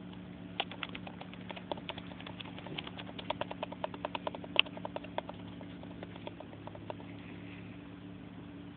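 Rapid, irregular small clicks and taps right at the microphone as a half Turkish Angora kitten paws and mouths at the camera. They come thickest in the middle, with one sharp louder click about four and a half seconds in, and die away near the end.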